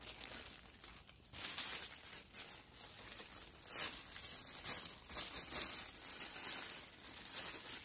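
Clear plastic wrapping crinkling and rustling as hands grip and pull it around a metal microphone stand, an irregular crackle that gets busier about a second and a half in.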